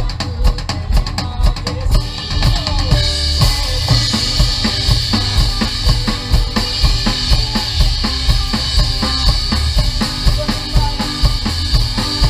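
Drum kit playing a steady beat of kick and snare with a live band. A cymbal wash comes in about two seconds in and carries on over the beat.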